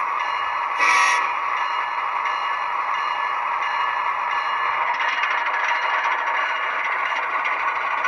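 Sound-equipped HO-scale GE ES44AC model locomotive playing its diesel running sound through its small onboard speaker, a steady rattling hiss, with one short horn toot about a second in.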